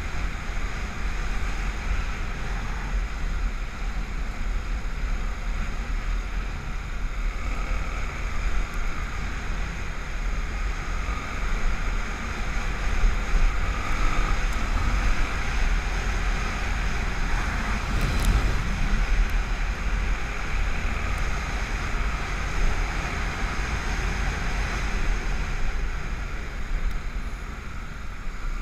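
Honda XR250 Tornado's single-cylinder four-stroke engine running steadily, mixed with wind buffeting the microphone.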